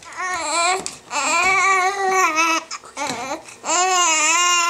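Newborn baby fussing: three drawn-out, wavering cries, the middle one the longest.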